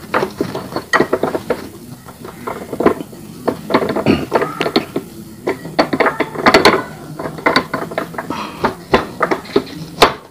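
V-belt pulley being worked back and forth by hand onto a rice-mill polisher's steel shaft, its bore catching and scraping on the shaft. The result is an irregular run of clicks, knocks and rattles, densest in the middle.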